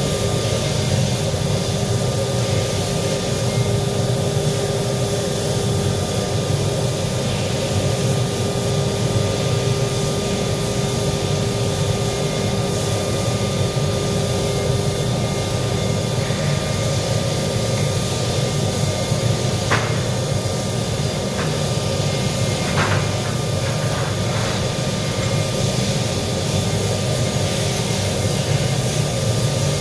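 Loud, steady machine drone with a low rumble and constant hum tones; a few sharp knocks come about two-thirds of the way through.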